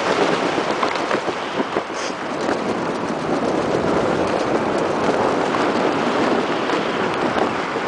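Steady wind rushing over the camera microphone as a skydiver descends under a parachute.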